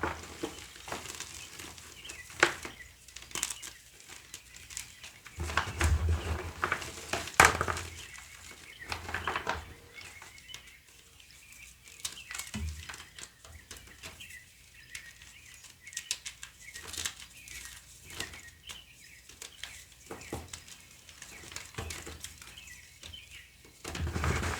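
A dry, crumbly block being crushed and crumbled by hand, giving irregular crisp crackles and crunches. There are a couple of soft low thumps about six and seven seconds in, and a quieter stretch in the middle.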